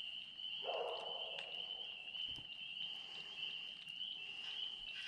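A steady, high-pitched chorus of small calling animals, such as insects or frogs, trilling without a break. A shorter, lower call joins it about half a second in.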